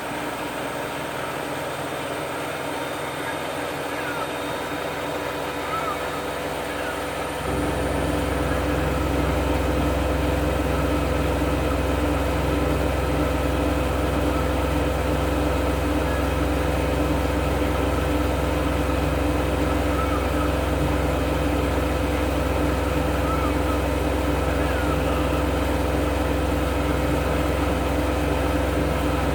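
Siemens Extraklasse F1300A washing machine running with a steady machine hum and a few fixed tones. About seven seconds in, the sound steps up suddenly, louder and with a deep low hum added, then holds steady.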